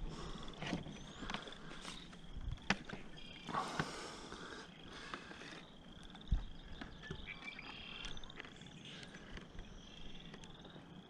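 Frogs calling, a faint chorus of short pulsing trills repeating over and over. Now and then a sharp knock or rustle from a fish being handled on a plastic measuring board, with a low thump about six seconds in.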